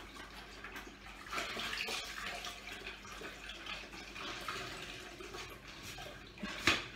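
String mop being rinsed in a bucket of water: uneven sloshing and swishing of water, with one sharper, louder sound near the end.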